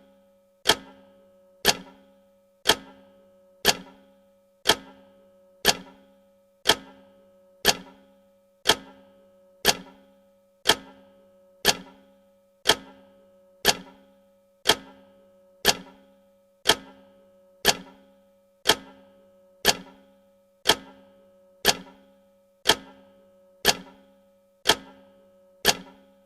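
Countdown timer tick sound effect: a sharp clock-like tick once a second, each with a brief ringing tone.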